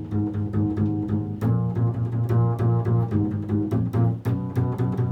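Music on low string instruments, with quick plucked notes, about four a second, over sustained low bowed tones; it is the day's 'vibration' music, built on the interval of a fourth.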